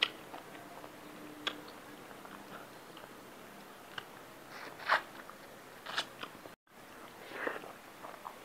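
Close-miked chewing and biting of a mouthful of rice and fish curry, with scattered mouth clicks and a few sharp crunches, the loudest about five and six seconds in.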